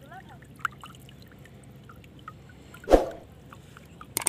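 Water dripping and trickling from a wet fishing net being handled at the water's edge, with a sharp splash or thump about three seconds in and a quick pair of clicks near the end.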